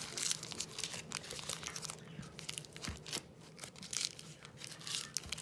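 Butter paper crinkling and rustling in irregular crackles as it is rolled and pressed tightly around a log of minced beef.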